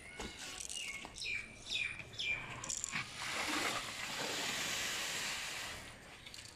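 Soaked rice seed and water poured from a steel tub into a jute sack: a steady rushing pour starting about halfway through and lasting about three seconds. Before it, a bird gives several short chirps that fall in pitch.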